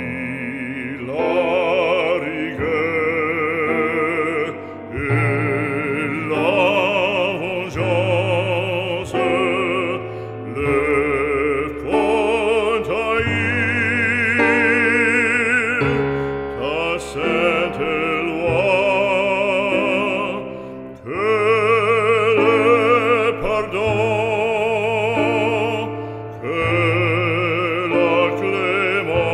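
Operatic aria playing as background music: a solo classical singer holding long notes with wide vibrato over an instrumental accompaniment.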